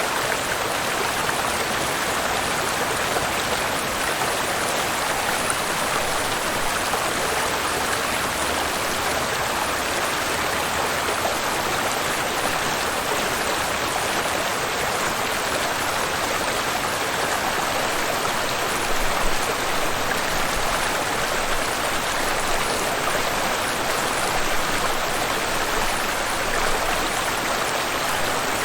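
River water rushing over a waterfall, a steady, unbroken rush.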